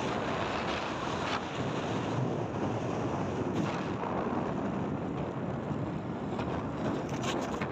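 Steady wind rushing over the microphone of a moving motorcycle, with road noise underneath.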